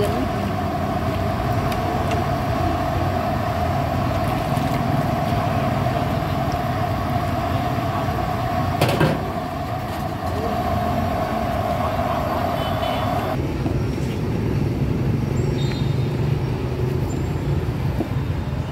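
Busy street ambience with motor traffic rumbling steadily. A steady hum runs through most of it and cuts off suddenly about two-thirds of the way through, and there is a single sharp knock around the middle.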